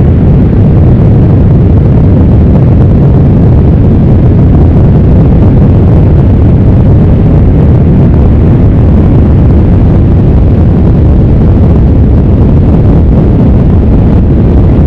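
Tornado roar: a loud, steady low rumble with no breaks, pushed to the limit so it sounds clipped and distorted.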